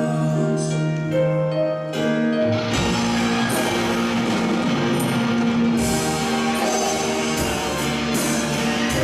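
Live band music: a held chord for about the first two and a half seconds, then drums and the full band come in.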